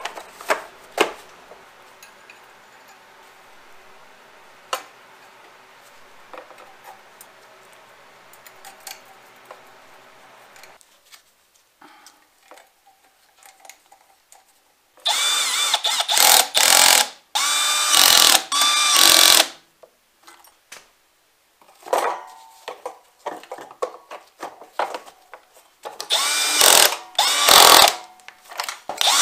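Power drill driving in the screws that hold the engine's cooling shroud and grille, in short whining bursts: a run of them about halfway through and another near the end. Before that, faint clicks and knocks as the shroud parts are handled.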